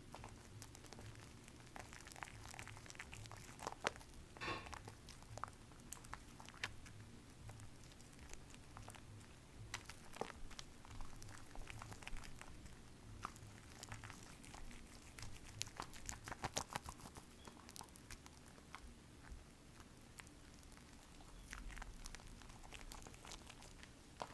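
Bar soap and thick lather being worked by hand in an aluminium foil pan: faint wet crackling and popping of the foam with many scattered small clicks.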